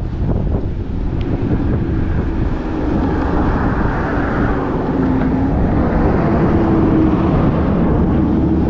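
Road traffic passing close by: a steady rush of tyre and engine noise that grows louder over the first few seconds, with a wavering engine hum.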